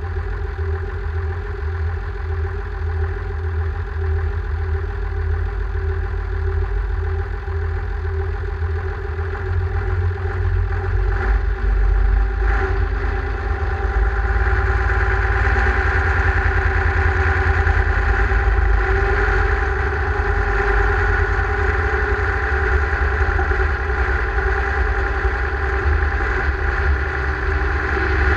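Deutz-Fahr Agrosun tractor's diesel engine idling, heard close to its exhaust stack. About halfway through it grows louder and stays so.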